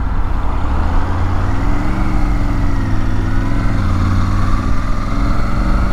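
Triumph Tiger 900 GT Pro's three-cylinder engine pulling at low road speed, its pitch rising a little about two seconds in and easing back later, over steady wind and road noise.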